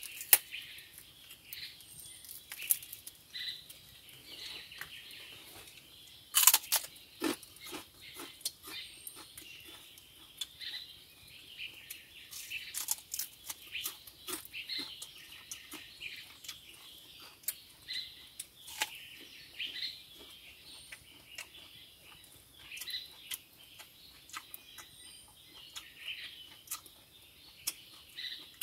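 Small forest birds chirping and twittering on and off, with scattered sharp clicks and crackles; the loudest is a sharp crack about six and a half seconds in.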